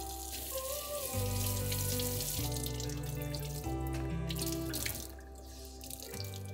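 Kitchen tap running into a stainless steel sink while a sponge is rinsed and squeezed out under the stream, over background music.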